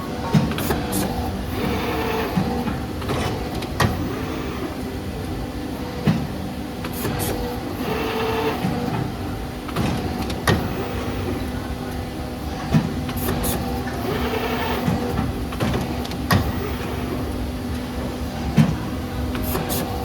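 CNC tube bending machine running: a steady motor hum with sharp clicks and knocks every second or two and brief hissing bursts now and then as it works the tube.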